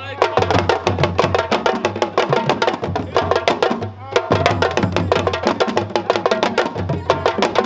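Live West African hand drums played in a fast, dense rhythm of sharp strokes, with a brief drop in the playing about four seconds in.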